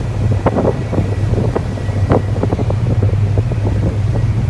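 Storm wind buffeting the microphone over a steady low rumble, with irregular gusts.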